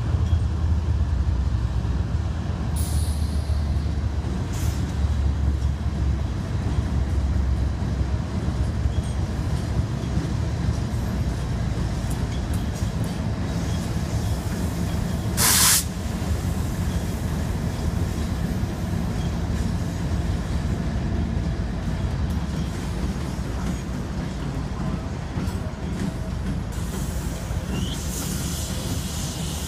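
BNSF freight train running alongside, a steady low rumble mixed with the pacing car's road noise. About halfway through there is one short sharp hiss, and near the end a higher hiss with a brief squeal.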